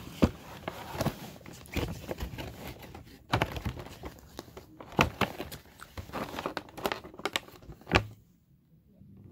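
Clear plastic packaging tray and cardboard box crinkling and crackling as a toy figure is worked out of them, with irregular sharp snaps. It falls quiet about a second before the end.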